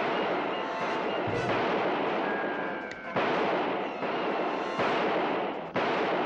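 Gunshots in a shootout: about four shots, each ending in a long echoing tail, over background music.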